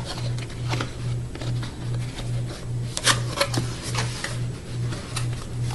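Cardboard box and packaging being opened by hand: scattered rustles, crinkles and clicks. Underneath, a steady low hum that pulses about two or three times a second.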